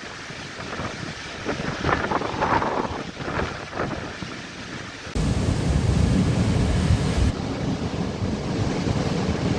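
Storm-driven waves and strong wind, with the surf surging in the first half. About halfway through, heavy wind buffets the microphone and a low rumble takes over.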